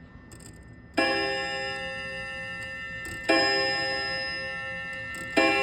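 Seth Thomas mantel clock's chime striking three times, a little over two seconds apart, each stroke ringing on and fading slowly into the next. A few faint clicks come just before the first stroke.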